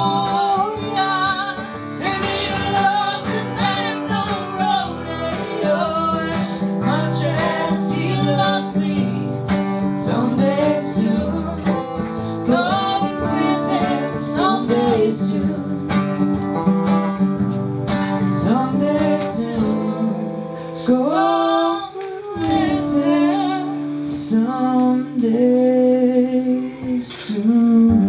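Live acoustic folk song: an acoustic guitar strummed steadily, with a man and a woman singing together.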